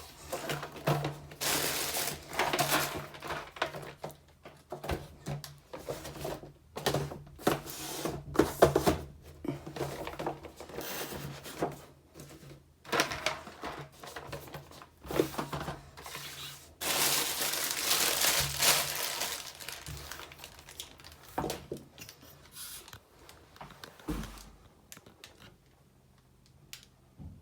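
Boxed action figures and their plastic and cardboard packaging being handled and set down: irregular rustling with knocks, easing off and growing quieter near the end.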